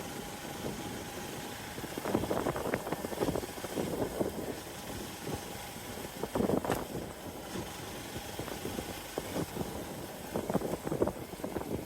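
Hero XPulse 200 Pro's single-cylinder engine running at low speed, with louder uneven bursts of short rattly strokes about two seconds in, midway and near the end.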